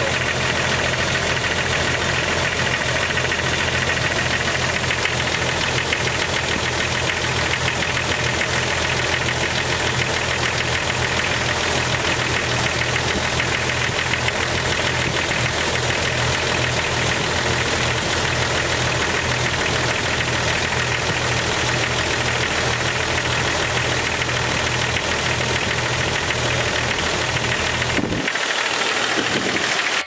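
1998 Jeep Cherokee XJ engine idling steadily with a clacking tick from the valvetrain under the valve cover, which the owner suspects is a lifter tick. The engine is not yet at operating temperature; he expects most of the ticking to fade as it warms, but the loudest clack to stay on one cylinder.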